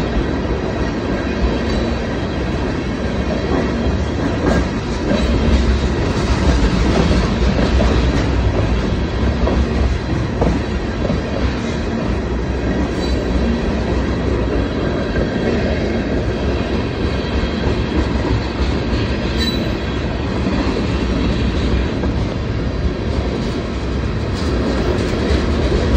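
Freight train of empty tank cars rolling past at a steady speed: a continuous rumble of steel wheels clacking over the rail joints, with a faint, steady high squeal from the wheels.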